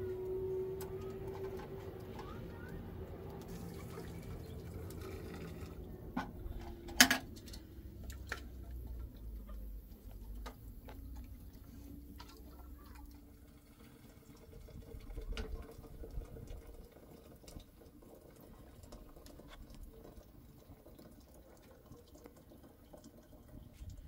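Water poured from a metal teapot, with small clinks of metal and glass and one sharp knock about seven seconds in. A low steady hum runs under the first few seconds.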